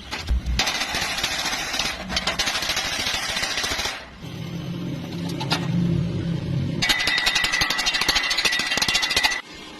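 Stick (electrode) arc welding: the arc crackles in two runs of about three seconds each, with a stretch of lower humming between them.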